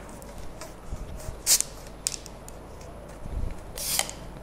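Plastic Sprite bottles being unscrewed, letting out short hisses of escaping carbonation: one about a second and a half in and a longer one near the end. A low bump of handling comes just before the second hiss.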